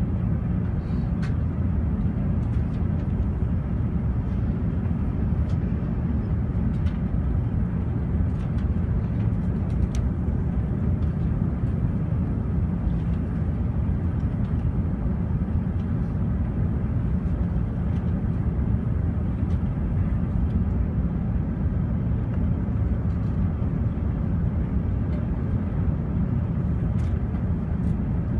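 Steady low rumble inside the cabin of an Airbus A380, heard from the upper deck: the engines and airflow running at an even level, with a few faint ticks.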